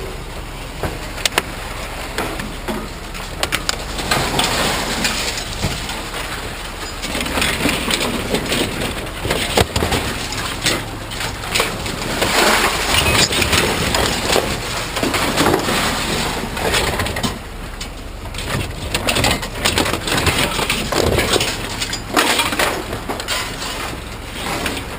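Scrap being handled and rummaged through: an irregular run of clatter, knocks and scraping, busiest in the middle.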